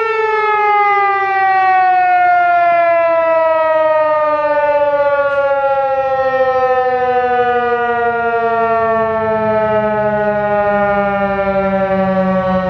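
ASC T-128 outdoor warning siren winding down at the end of its alert tone: one loud, steady-toned wail whose pitch falls slowly and smoothly as the rotor loses speed.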